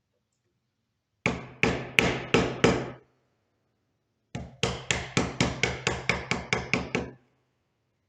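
Hammer blows in hand woodworking, in two runs: five strikes, a pause, then about eleven quicker strikes at roughly four a second.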